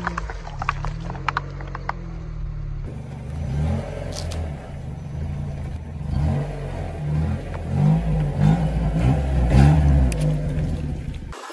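Car engine running at crawling speed as a tyre rolls over and crushes things. In the first two seconds there are sharp crackling clicks as the tyre bursts plastic cups of coloured liquid. After that it squashes blocks of red jelly, with a few more crackles over the engine's low hum, which rises and falls.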